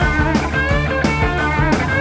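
Hard rock with electric guitar and a steady drum beat, played from a vinyl LP on a custom LA Julia MK2 turntable fitted with a Sumiko Blue Point Special Evo-III high-output moving-coil cartridge.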